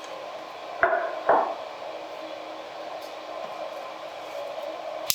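Workshop sounds: two sharp knocks about half a second apart over a steady whirring hum, and a sharp click near the end.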